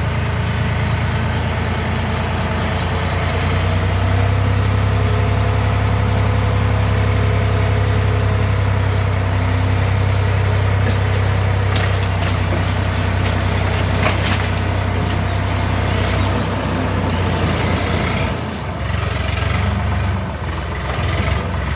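Heavy diesel engine of the excavator or tractor working the pond, running steadily. It grows louder a few seconds in and eases off near the end. A couple of brief sharp knocks come in the middle.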